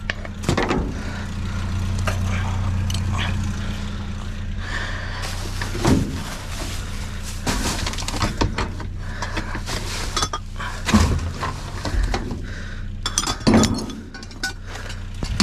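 Scrap being handled and rummaged through: repeated clinks, clatters and knocks of metal and glass, with heavier knocks about six seconds in, at eleven, and shortly before the end, over a steady low hum.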